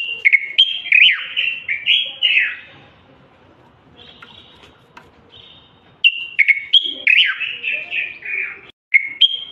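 Common bulbul singing: quick, clear whistled phrases of gliding notes. A loud burst of song opens, fainter notes follow in a pause, and a second loud burst starts about six seconds in.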